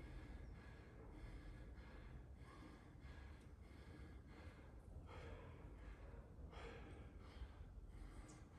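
A man breathing hard and fast, faint, in an even rhythm of about two breaths a second, catching his breath after intense exertion.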